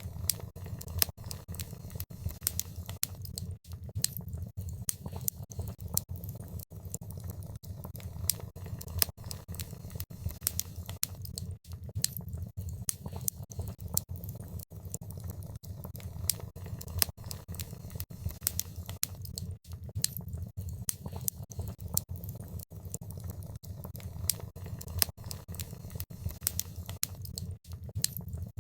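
Wood fire crackling in a fireplace: frequent irregular sharp pops and snaps over a steady low rumble of the burning fire.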